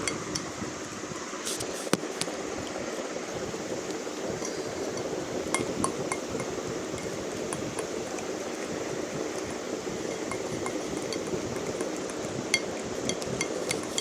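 Cupcake batter being stirred in a mixing bowl: a steady scraping swish of the utensil through the batter, with scattered light clinks against the bowl.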